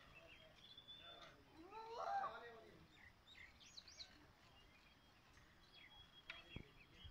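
Quiet rural background with a few faint bird chirps and whistles; about two seconds in, one drawn-out call rises and falls in pitch.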